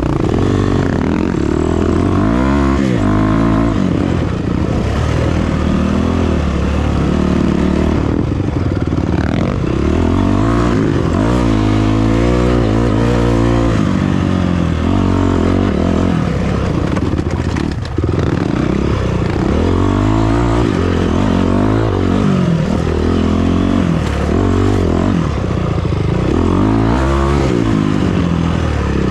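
Off-road vehicle engine under way, its pitch rising and falling again and again as the throttle is opened and eased off.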